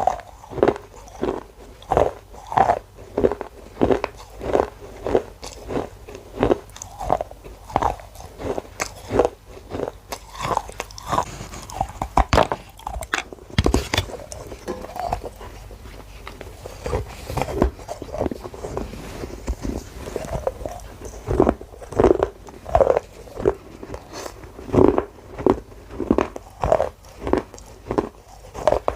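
A person biting and chewing pieces of baked clay pot, each chew a crunch, about two a second. The rhythm loosens in the middle, where a couple of sharper, harder bites stand out.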